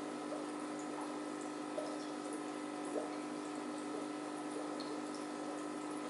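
Aquarium filter pump running with a steady hum, water bubbling and trickling, with a few small drips and plinks.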